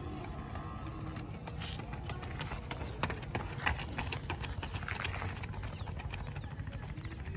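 Running footsteps of two sprinters striking a paved road in quick, rhythmic footfalls, loudest as they pass close by about three to four seconds in, over a steady low rumble.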